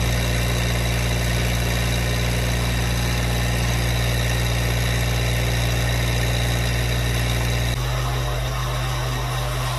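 Massey Ferguson GC1723E subcompact tractor's three-cylinder diesel engine running steadily while its backhoe digs a trench. About eight seconds in, the engine sound changes abruptly and becomes thinner.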